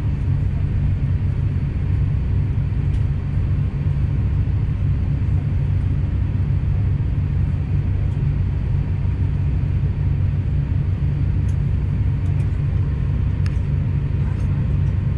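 Steady low rumble inside the economy cabin of an Airbus A350-900, with its engines running and the airframe humming, as heard from a window seat.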